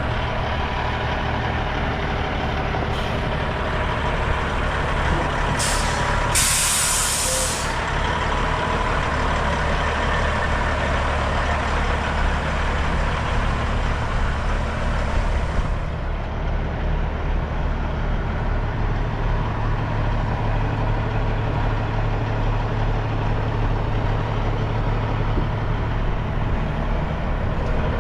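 2006 Western Star truck tractor's diesel engine idling steadily. About six seconds in, a loud hiss of air is let out of the truck's air system for about a second and a half.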